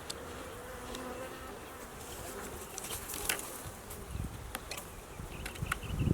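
Swarm of honey bees buzzing, a steady hum with a single bee's drone wavering past in the first second and a few faint clicks.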